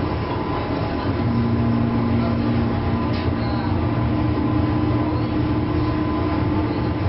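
Running sound inside a JR 201 series electric train's motor car, right above its armature-chopper control unit: a steady rumble of the wheels on the track. About a second in the sound grows louder and a steady electrical hum from the chopper control comes in, and a second, slightly higher hum joins it a few seconds later.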